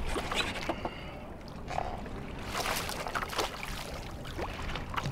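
Water splashing and sloshing as a swordfish thrashes at the surface alongside the boat's hull, with the loudest splashes in the middle.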